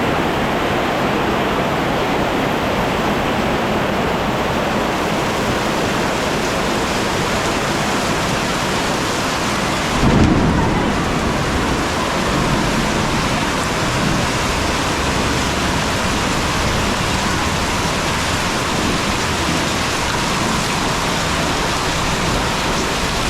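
Heavy rain pouring down steadily, with a brief low rumble about ten seconds in.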